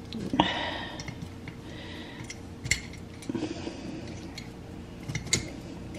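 A few scattered light metallic clicks and taps: a nail being worked against a dime stuck in the neck of a wine bottle.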